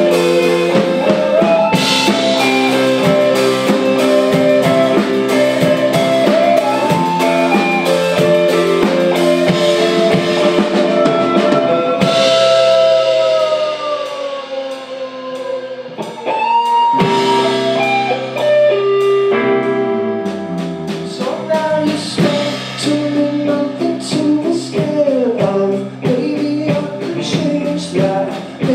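Live rock band playing: electric guitars, electric bass and drum kit with a lead singer. About halfway through, the music thins out briefly, then the full band comes back in.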